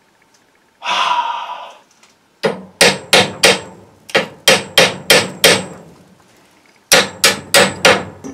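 Sharp metal-on-metal blows on a stuck brass valve fitting on a copper water pipe, struck to break it loose. About nine strikes come at roughly three a second, each with a brief ring. After a pause of about a second, faster strikes follow near the end.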